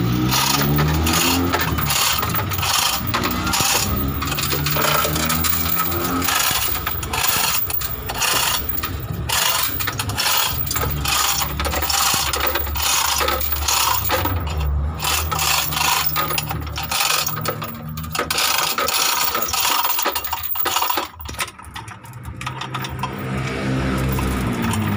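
Rapid, irregular metallic clicking and rattling, as from a chain hoist being worked to take an engine's weight, over a low engine hum that glides in pitch near the start and again near the end.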